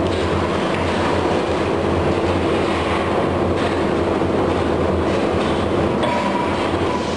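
Steady loud drone of forge-shop machinery, a continuous roar with a low steady hum under it, with no hammer blows.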